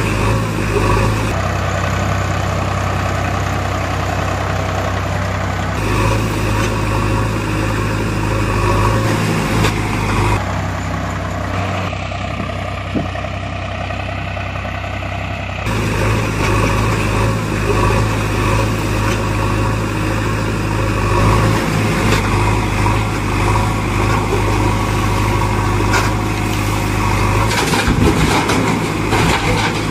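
A heavy vehicle's engine idling steadily, its sound changing abruptly several times. Near the end come a few clicks and rattles.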